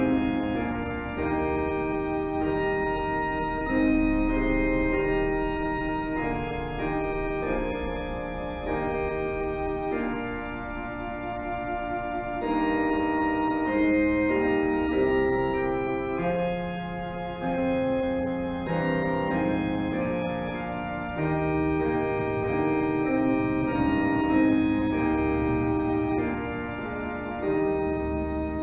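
Organ playing slow music in held chords that change every second or two.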